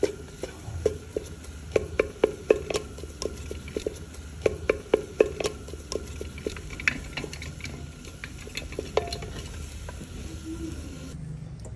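Wooden spatula stirring and pressing thick semolina halwa in a terracotta clay pot as it roasts, making irregular knocks and scrapes of wood against the pot. The knocks come in quick clusters about two and five seconds in and thin out towards the end.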